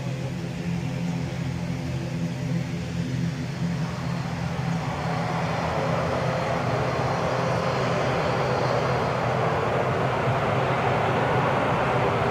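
FA-50 jet's single turbofan engine at takeoff power on its takeoff roll: a rushing roar that swells from about four seconds in and keeps growing louder, over a steady low hum.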